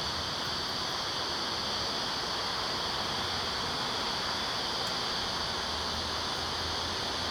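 Steady buzzing hum of Carniolan honeybees at an open hive, with a guard bee flying close around the microphone, under a steady high hiss.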